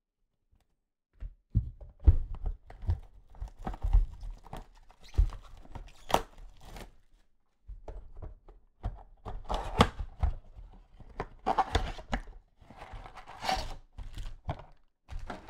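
Trading card packs being handled and opened on a table: irregular knocks and thumps with tearing and rustling of the pack wrappers, starting about a second in, with a short pause about halfway.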